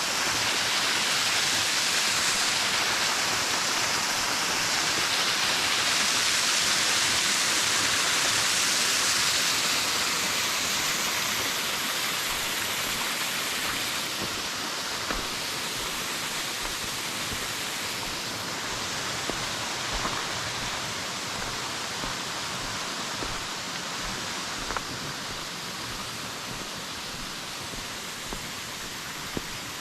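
Waterfall: a steady rush of falling water that grows gradually quieter from about ten seconds in.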